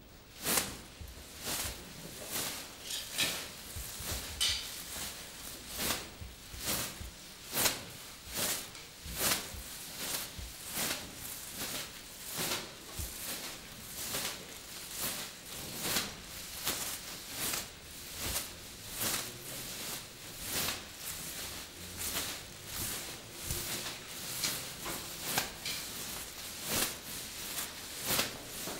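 Rhythmic handling noise: a short rustling, clattering stroke repeated about every 0.8 seconds.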